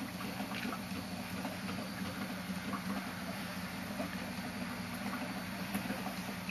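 A steady low mechanical hum under an even hiss, with a few faint light ticks.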